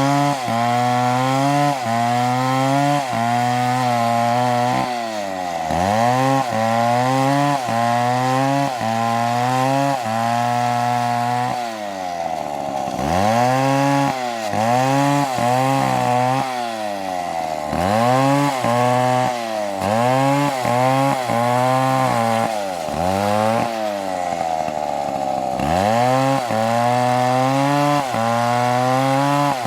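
Two-stroke chainsaw cutting wood, its engine pitch repeatedly sagging as the chain bites under load and rising again as it revs back up, with a few longer, deeper drops during heavier cuts.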